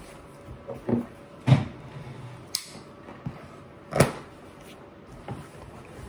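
Scattered knocks and taps of a cardboard box being handled while it is cut open with a pocketknife, with a sharp snap about two and a half seconds in and the loudest knock about four seconds in.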